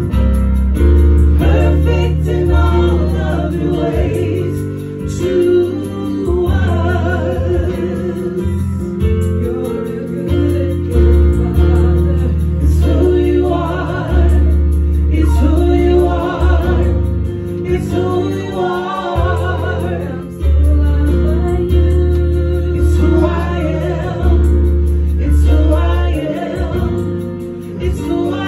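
Gospel worship song sung by women's and a man's voices over keyboard accompaniment, with a strong bass line moving in notes held about two seconds each.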